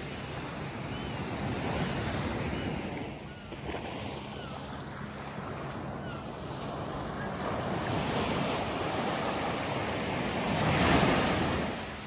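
Surf breaking and washing up a sandy beach, a rushing noise that swells and ebbs with each wave, loudest as a wave breaks near the end. Wind rumbles on the microphone underneath.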